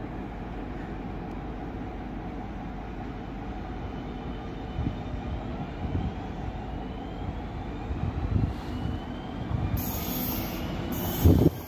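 A train moving through the station: a steady low rumble of wheels on rail, with faint thin whines gliding upward partway through. A hiss starts about ten seconds in, and a single heavy thump comes just before the end.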